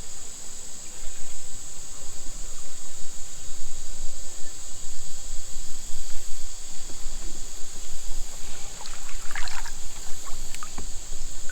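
Water lapping and trickling around a small boat floating on a river, under a steady high drone of insects. A few short clicks and scrapes come near the end.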